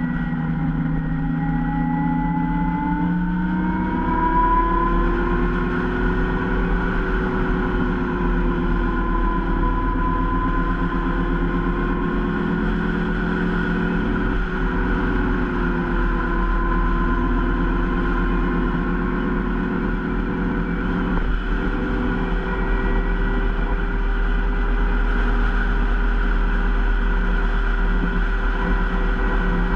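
Zero SR electric motorcycle's drive motor whining while riding, its pitch rising over the first few seconds as it speeds up and then holding fairly steady. Wind and road noise run underneath.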